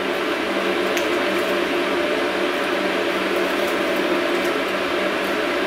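A steady machine hum with a low droning tone, like a running appliance or fan. A paper cake liner gives a faint rustle and click as it is peeled about a second in.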